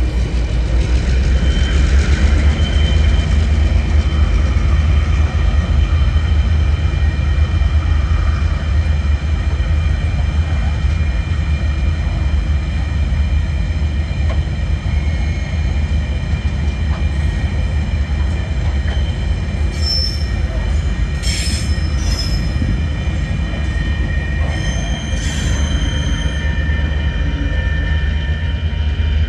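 Empty ore wagons of a freight train rolling past, a steady low rumble with high wheel squeals held over it; sharper squeals come and go about two-thirds of the way through.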